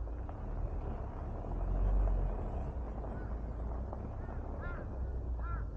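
Hyundai Staria camper van rolling slowly over gravel: a low rumble with the crunch of tyres on loose stones, and wind on the roof-mounted microphone. A few short squeaky chirps come in the second half.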